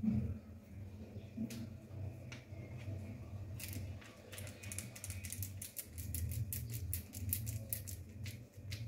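Plastic spice shaker being shaken over a bowl of chicken, a rapid run of light clicks as the cap and powder rattle, starting about halfway through, over a steady low hum.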